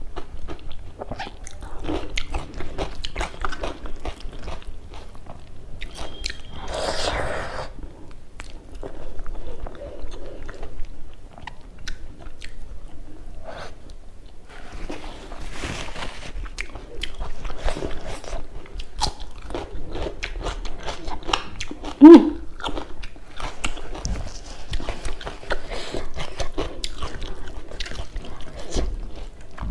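Close-up eating sounds: chewing a mouthful of hand-mixed rice and dry pea curry, with crunchy bites and wet mouth clicks. A single short hummed sound, the loudest moment, comes about three quarters of the way through.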